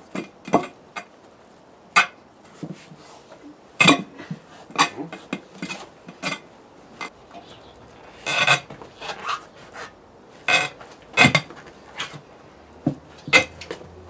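Tyre being forced by hand and foot onto an alloy wheel rim: irregular sharp clicks and knocks as the rubber bead rubs and snaps against the rim edge.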